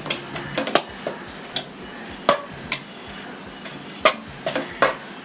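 Metal spoon stirring crumbly red rice flour and hot water in a metal kadai, knocking and scraping against the pan in irregular clicks, two or three a second, as the idiyappam dough is mixed.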